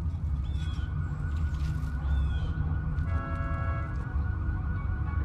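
Film sound effect of a hovering spacecraft: a steady deep rumble with a warbling, siren-like tone above it. A held chord of several steady tones joins about three seconds in.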